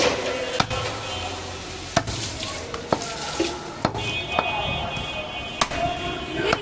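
Heavy butcher's cleaver chopping goat meat and bone on a wooden chopping block: about eight sharp strikes, roughly one a second and unevenly spaced.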